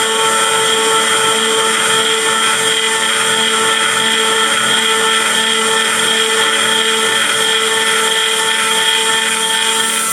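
A 2.2 kW Chinese CNC spindle running steadily at high speed, with a high whine, as its end mill trochoidal-mills the metal part.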